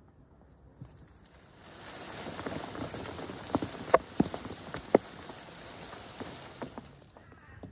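Feijoa tree being shaken: leaves and branches rustle, and several ripe fruits thump one after another onto the grass in the middle.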